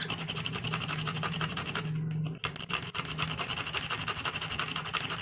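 Fresh cucumber being grated on a small handheld metal grater: rapid, even rasping strokes, with a brief pause about two seconds in.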